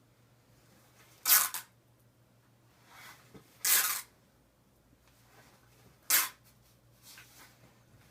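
Cloth hockey tape being pulled off a split half-roll as it is wound around a stick's knob: three short noisy pulls about two and a half seconds apart.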